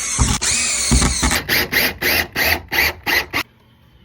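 Power drill running steadily with a wavering pitch, then pulsed in short rapid bursts, about five a second, before it stops near the end.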